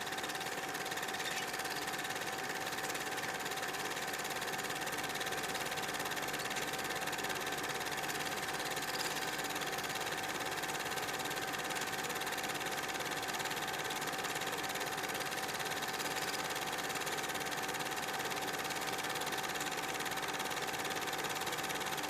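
Old-film projector sound effect: a steady mechanical whir and hiss with a constant hum, unchanging throughout.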